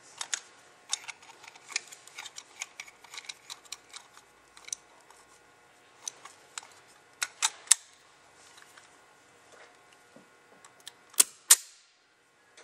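Light metallic clicks and taps of a Lynx 100C spray gun and its air fittings being handled while the rebuilt gun's fluid section is hooked up for an air pressure test. The clicks come scattered at first, a few louder ones fall in the middle, and two sharp clicks come near the end.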